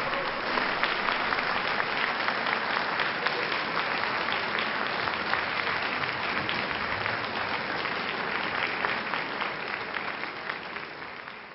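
Concert audience applauding: many hands clapping in a steady, dense patter that fades out near the end.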